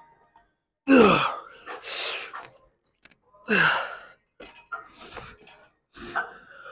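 A weightlifter's strained grunts and forceful exhalations through a heavy set of seated cable rows: two loud groans dropping in pitch, about a second in and again near the middle, with hard hissing breaths and smaller grunts between them.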